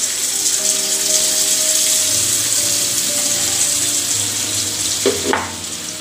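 Boondi batter dripping through a perforated ladle into hot coconut oil in an aluminium kadai, the oil sizzling and bubbling with a steady hiss that eases a little near the end.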